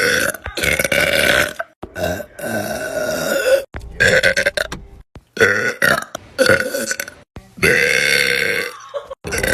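Girls burping, about six long, loud burps one after another, each cutting off abruptly.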